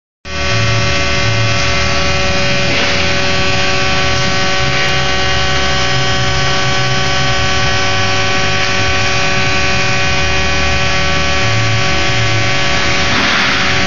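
Welding equipment running with a steady machine hum: several steady tones held together over an uneven low rumble.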